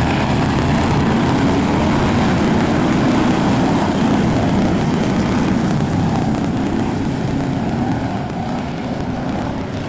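A pack of BriSCA F1 stock cars running their V8 engines at racing speed, a dense, loud blend of several engines that grows a little quieter near the end.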